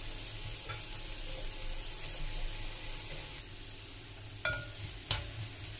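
Grated carrot and onion frying in butter in a pan, sizzling steadily. Twice near the end a utensil knocks sharply against the pan.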